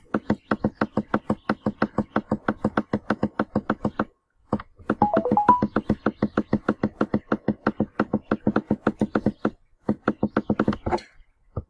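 Computer mouse button clicked rapidly and evenly, about six clicks a second, on a scroll arrow to scroll a list. The clicks come in long runs with short pauses about four and ten seconds in.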